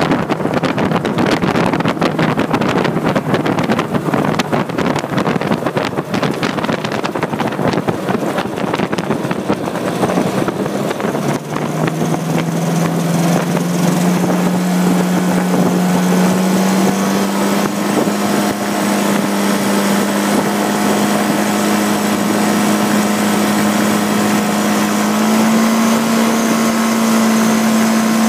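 Drifter ultralight aircraft's engine running, with wind buffeting the microphone. About eleven seconds in, the wind noise eases and a steady engine note comes through, slowly rising in pitch.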